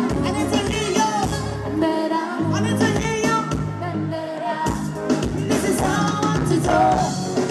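Live band playing an upbeat pop song, a woman singing over electric bass and drums.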